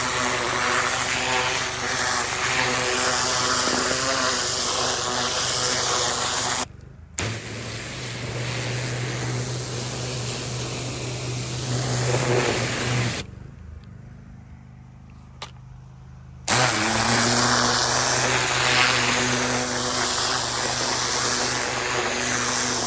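Pressure washer running hard with its jet driving into soil: a steady motor drone under a loud spray hiss. It breaks off for a moment about seven seconds in, then drops to a low hum for about three seconds past the middle before coming back at full strength.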